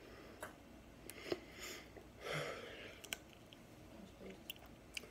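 Faint mouth and hand sounds of eating snow crab by hand: a few sharp, light clicks as meat is picked from the shell and chewed, with a soft breath about two seconds in.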